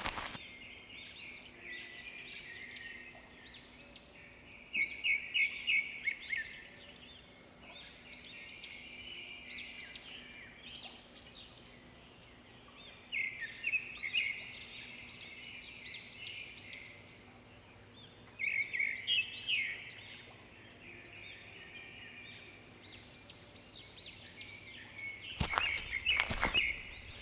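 Small birds chirping in repeated bursts of quick high notes over a faint steady background. A few sharp knocks come near the end.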